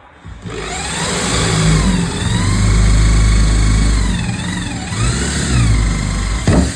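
A motor engine running loud and revving, its pitch rising and falling several times, then dropping away sharply near the end.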